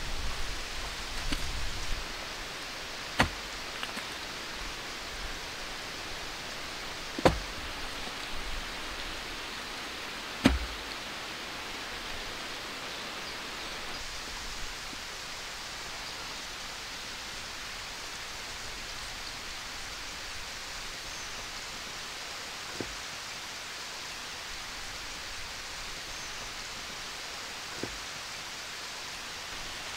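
Wooden poles knocking together as they are handled and set into a frame: three sharp knocks in the first eleven seconds and two fainter ones later, over a steady outdoor hiss.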